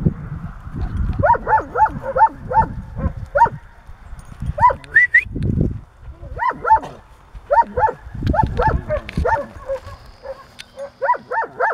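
Dog barking in quick runs of short, pitched barks, each rising and falling, with a low rumble underneath that comes and goes.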